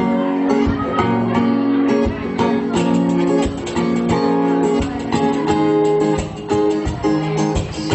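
Guitar-led music without vocals: strummed chords over a steady beat, an instrumental passage before the singing comes in.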